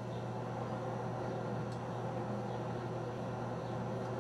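Steady road and engine noise inside a moving car, with a constant low hum underneath.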